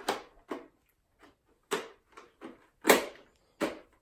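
Hard plastic clicks and knocks from a Nerf Rival blaster and its ball magazine being handled and fitted together, about five sharp strokes with the loudest a little before three seconds in.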